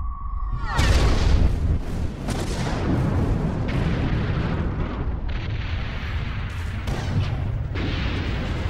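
A high, steady ringing tone over a muffled low rumble cuts off about a second in. The full din of a First World War battle then breaks in: artillery explosions and gunfire, dense and continuous.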